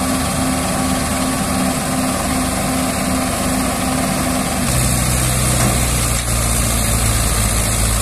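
Diesel tractor engine running steadily in a muddy-field recovery. About five seconds in, its note drops lower and grows heavier.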